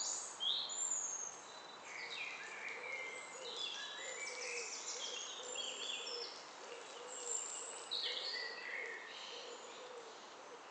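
Woodland songbirds singing, several at once: short high chirps, whistles and trills overlapping one another, with a faint low repeated note underneath for much of the time.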